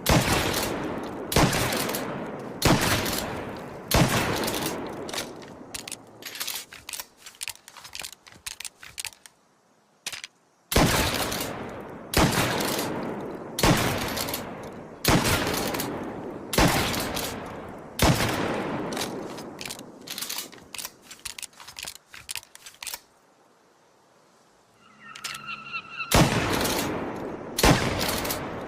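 Remington 870 pump-action shotgun firing shot after shot, about one every second and a half, each blast with a long echoing tail. Runs of quieter clicks come between volleys, with two short pauses where it goes almost silent, and a brief tone sounds just before the last volley.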